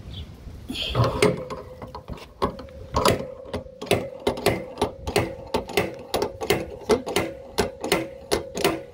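Dent-pulling tools working on a dented metal panel: sharp metallic clicks, about two to three a second, with a steady whine underneath from about three seconds in, as the dent is drawn out.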